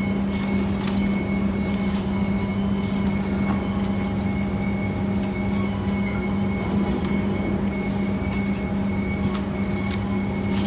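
Steady drone of workshop machinery: a strong low hum with a thin high whine above it, and scattered light clicks and knocks throughout.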